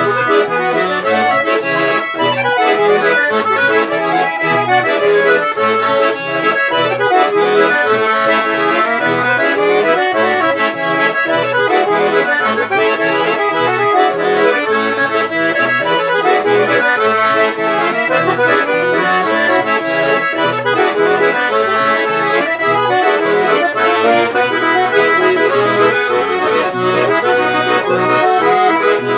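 Two Todeschini piano accordions playing a lively instrumental duet: a busy right-hand melody over a steady, regular bass-and-chord rhythm, without a break.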